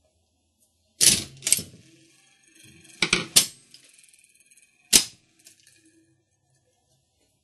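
Mechanical slot machine mechanism worked through its handle-pull cycle: sharp metallic clacks of levers, springs and payout slides snapping into place. Two come about a second in, a close pair around three seconds, and a single sharp one near five seconds, with light rattling between.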